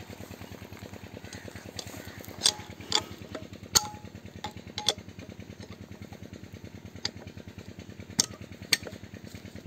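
Small home-built diesel engine running steadily with a fast, even chugging beat while it drives a bore-well pump. Several sharp clicks stand out over the running.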